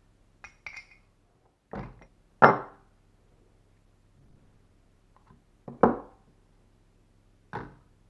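Cast aluminium plaques being set down and picked up on a digital kitchen scale and the work surface: a handful of separate knocks and clinks of metal on plastic and rubber, two of them sharper and louder than the rest.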